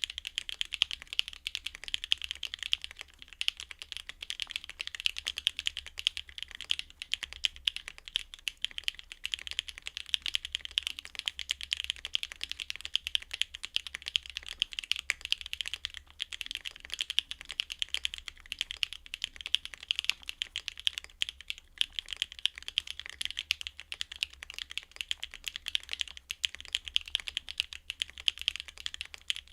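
Continuous fast typing on a Neo Ergo custom mechanical keyboard with BSUN Bumblebee linear switches: a dense, even stream of bright key clacks with no pauses.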